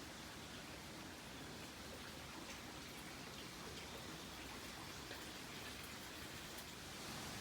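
Faint steady hiss of background noise with a few soft, scattered ticks.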